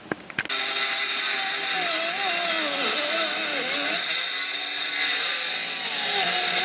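An electric power tool runs continuously. It starts abruptly about half a second in, and its motor pitch wavers up and down as the load changes.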